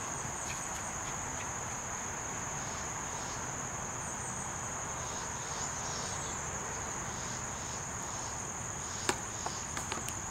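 Steady high-pitched insect chorus, one continuous trill, with a single sharp click about nine seconds in.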